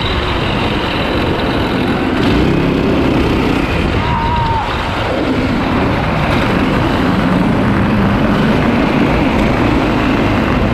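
Four Predator 212 single-cylinder four-stroke engines on an all-wheel-drive go-kart running hard under load while driving, their pitch rising and falling with the throttle. Heard from a camera mounted on the kart.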